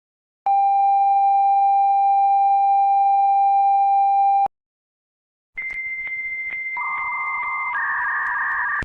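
Electronic tones of a mock emergency-broadcast alert: one steady mid-pitched tone held for about four seconds, then after a short gap a higher steady tone with faint clicks, joined by a lower second tone, the higher one stepping down in pitch near the end.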